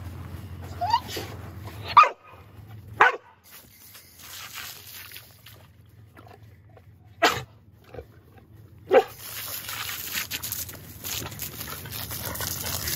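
A dog barking in short yips, five in all and spread out, the first rising in pitch. From about ten seconds in, a garden hose sprays water with a steady hiss.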